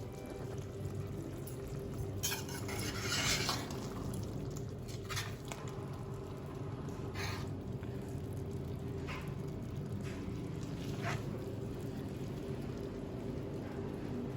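A spoon or ladle scraping and clinking against a pot as thick curry gravy is scooped out into a bowl, with a longer scrape about two to three seconds in and a few single clinks after. A steady low hum runs underneath.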